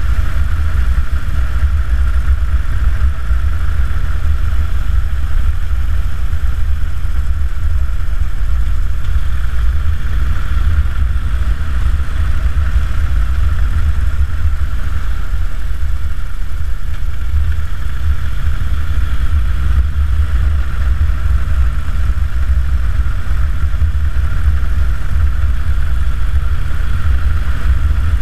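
2009 Harley-Davidson Dyna Super Glide's Twin Cam 96 V-twin engine running steadily while cruising on the road, with a strong low rumble and an even level throughout.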